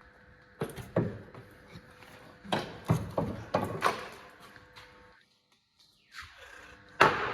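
Irregular knocks and clunks from tools and car parts being handled during gearbox removal, with a short dead gap just after the middle and a loud bang near the end.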